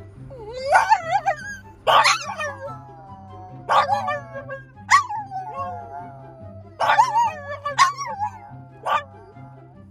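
French bulldogs howling and yipping in a tantrum: about six drawn-out howls whose pitch slides up and down, each breaking off into yips, over background music.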